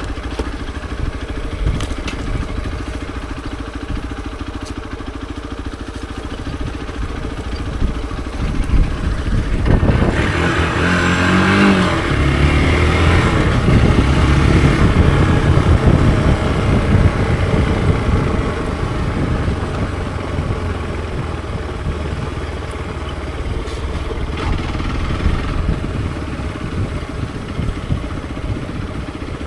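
Hero XPulse 200 4V's single-cylinder engine running under way. It opens up about a third of the way in, pitch climbing for several seconds, then eases back to a steady drone.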